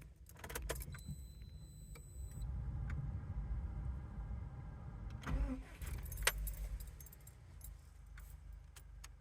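Ignition key jangling and clicking, a short high electronic beep, then a vehicle engine starting and running steadily at idle, with a few more clicks along the way.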